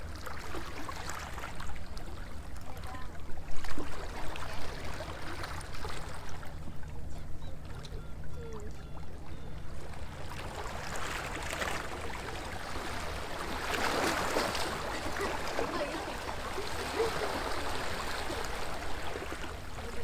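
Small waves lapping and washing against a stone seawall, swelling louder twice in the second half, over a steady wind rumble on the microphone.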